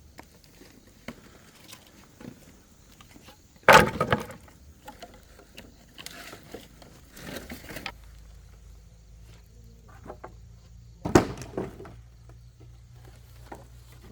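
Wood clattering hard, twice, several seconds apart, with softer knocks in between, as of boards being dropped or handled on a pile. A steady low hum comes in about two-thirds of the way through.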